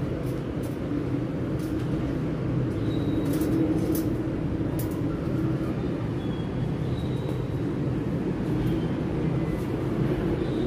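Steady low rumble of outdoor background noise, with a few faint short high chirps and light ticks scattered through it.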